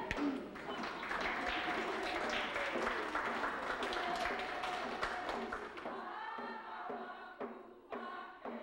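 An audience clapping, with voices in the crowd. The clapping dies away about six seconds in, leaving voices, and singing begins near the end.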